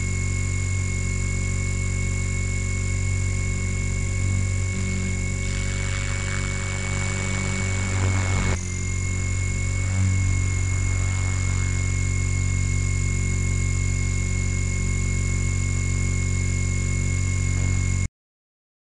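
Align T-Rex 450 electric RC helicopter's brushless motor and gears whining steadily, with rotor noise, picked up by a small camera mounted on the helicopter. It cuts off abruptly near the end.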